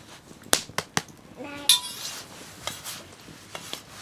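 Scattered sharp clinks and knocks of dishes and cutlery: a few quick taps in the first second, then a brighter clink about a second and a half in.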